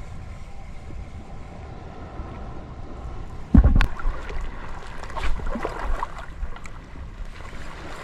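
Wind buffeting the microphone over moving water, with one loud sudden thump about three and a half seconds in, followed by smaller splashes.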